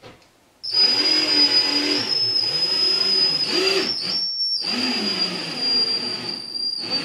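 DeWalt cordless drill running with a steady high whine, driving a screw into drywall. It starts under a second in, stops briefly just after four seconds, then runs again.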